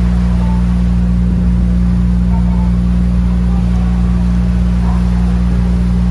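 A ferry's engines droning steadily: a loud, deep, unchanging hum made of several low tones.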